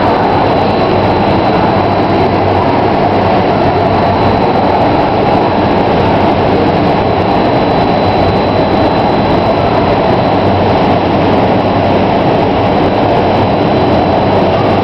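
SkyVenture indoor vertical wind tunnel running at flying speed: a loud, steady rush of air driven by the tunnel's fans, with a faint high whine held underneath.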